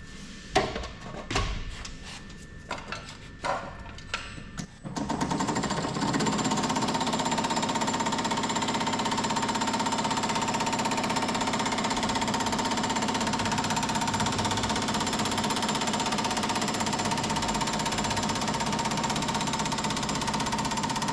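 A few scattered metal clanks, then about five seconds in a power hammer starts up. It runs steadily, hammering a sheet-steel repair panel rapidly between its shaping dies.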